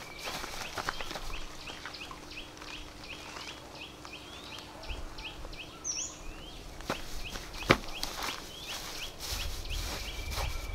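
Dry grass rustling and crackling as it is pulled and handled by hand. Under it runs a steady series of short, high, rising chirps, about three a second. One sharp click comes about three-quarters of the way in.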